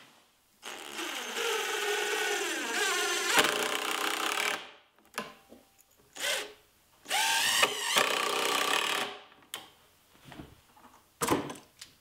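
Cordless drill driving two screws into a wooden 2x4 leg, one after the other, each run lasting a few seconds, the motor's pitch falling near the end of the first. A few short clicks near the end.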